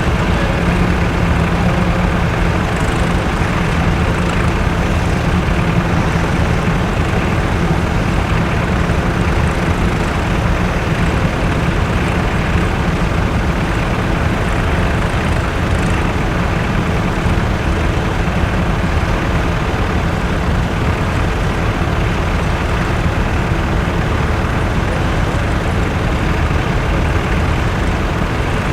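Tractor engine running steadily at an even speed, a constant hum with no change in pitch.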